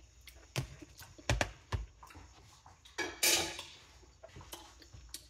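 A bowl being handled and set on a kitchen counter: a few sharp knocks and clinks in the first two seconds, a short louder scraping rush about three seconds in, then a couple of light taps.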